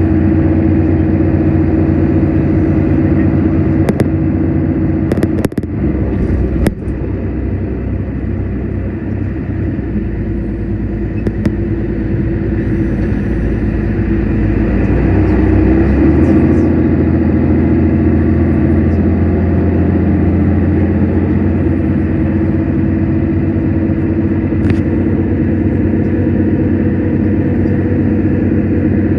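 Inside a Mercedes-Benz Citaro city bus on the move: a steady engine drone with road and tyre noise, and a few sharp clicks and rattles about four to seven seconds in. The engine note changes about sixteen seconds in.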